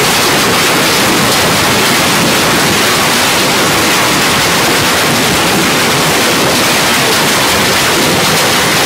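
Heavy hail falling in a wind-driven storm, a dense, steady din of countless stones striking the patio, pool and roof.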